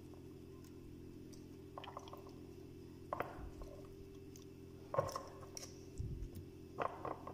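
Raw chicken drumsticks being set down by hand in a glass bowl of spices and ketchup: a few soft, wet squishes and light knocks against the glass, over a faint steady hum.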